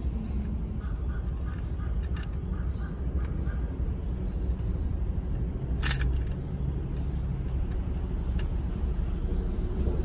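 Steady low rumble of outdoor background with a few light clicks of a screwdriver working the plastic clamp of a bicycle bulb horn, the sharpest about six seconds in.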